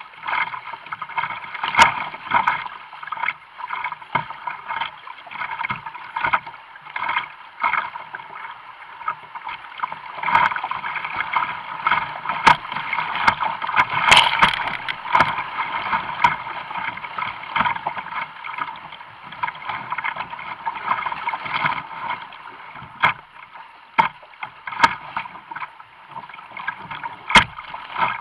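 Fast floodwater rushing and splashing against a whitewater kayak's hull and bow, muffled, with scattered sharp knocks and taps. The splashing is loudest in the middle, when a wave washes over the bow.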